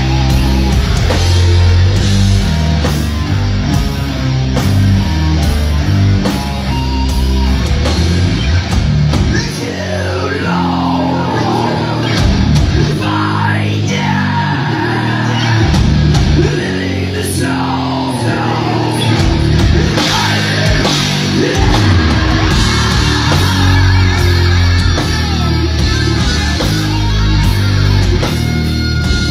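Death metal band playing live at full volume: heavily distorted electric guitars, bass and drums, with harsh yelled vocals.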